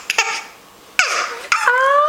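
A young child's high-pitched laughter: a short burst at the start, a sharp breathy outburst about a second in, then a rising squeal of a laugh near the end.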